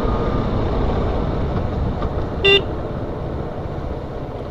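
A KTM Duke 125 motorcycle on the move, its riding noise a steady rush, with one short horn beep about two and a half seconds in.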